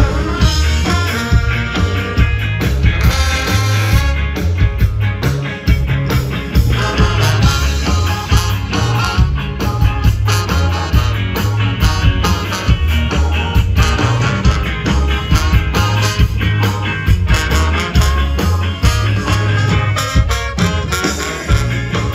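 Live rock band playing an instrumental passage, with a steady pulsing bass line and guitar.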